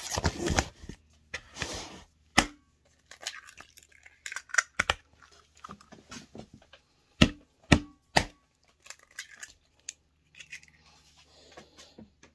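Eggs being knocked and cracked against the rim of a mixing bowl: a few sharp knocks, three in quick succession about seven seconds in, with light crackling and rustling between.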